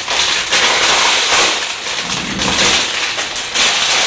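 Plastic packaging bag crinkling and rustling, loud and irregular, as it is opened to take out a tablet cover.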